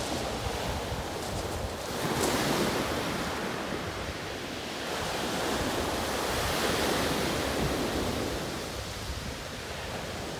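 Sea waves breaking and washing up a shingle beach, swelling twice, with wind rumbling on the microphone.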